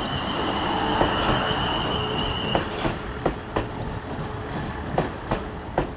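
Class 450 Desiro electric multiple unit passing at speed, with a steady high whine for the first couple of seconds, then its wheels clicking over rail joints, a few clicks a second.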